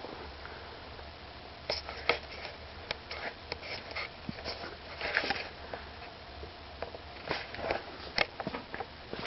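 Lasko Turn of the Century ceiling fan running at a medium-low speed on its variable-speed control, a steady low motor hum, with irregular clicks and short rustling noises over it.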